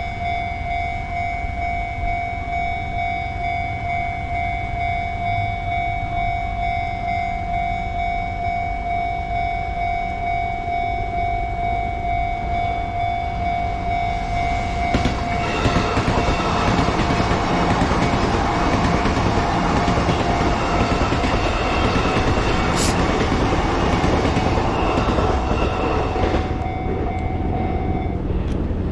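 Japanese railroad-crossing warning bell ringing as a steady, pulsing electronic tone. About fifteen seconds in, a train passes over the crossing with a loud rumble and rattle of wheels on rails, which fades a little before the bell stops near the end.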